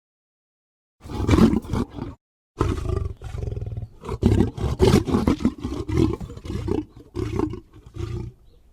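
Big-cat roar sound effect standing in for a scimitar-toothed cat: one roar about a second in, then after a brief pause a long, pulsing run of roars lasting about six seconds.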